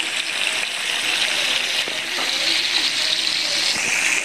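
Masala-coated tilapia pieces frying in shallow gingelly (sesame) oil in a pan over medium flame, a steady sizzle.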